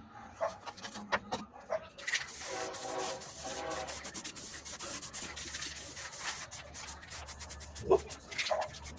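Washing machine running: after a few scattered clicks, a steady rushing, rubbing sound with a fast rattle of clicks starts about two seconds in and carries on.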